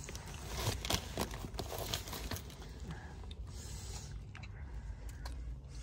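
Paper sandwich wrapper rustling and crinkling as a sub is handled and turned over, with scattered soft clicks and rubs, busiest in the first two seconds.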